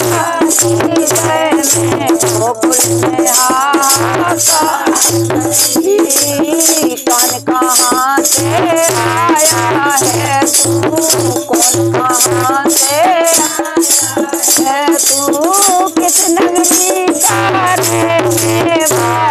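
Women singing a Hindi devotional folk song (bhajan) about Yashoda churning curd, accompanied by a rattle keeping a steady beat of about three strokes a second over a low pulsing rhythm.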